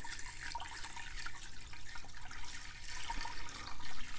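Apple juice poured from a half-gallon jug into the stainless steel inner pot of an Instant Pot, a steady stream of liquid splashing into the pot as it fills toward the trivet.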